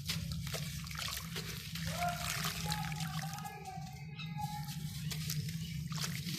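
Dry, dusty dirt and sand-cement lumps crumbling and dissolving in water, with scattered crackles and pouring, trickling water over a steady low hum.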